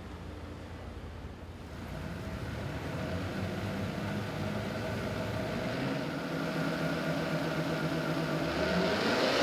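Stock twin-turbo 3.5L EcoBoost V6 of a Ford F-150 pulling on a chassis dyno during a baseline run: the engine note builds and grows steadily louder from about two seconds in, its pitch edging upward under load.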